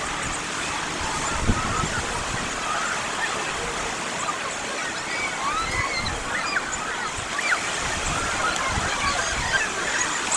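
Waves washing on the Azov Sea shore as a steady hiss of surf. From a couple of seconds in, many short, high, rising and falling squeaks sound over it.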